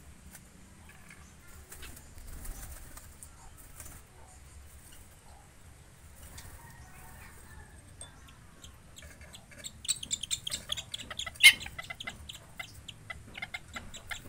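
Aviary birds flapping their wings: a quick flurry of wingbeats and scuffles starts about two-thirds of the way through, with one sharp loudest stroke. Faint bird calls come before it.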